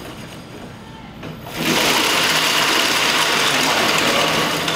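Electric go-kart's DC motor (D&D ES-10E-33) spinning up and driving the rear axle through its chain with the rear wheels off the ground: a steady electric whir mixed with chain noise that comes in suddenly about a second and a half in and holds.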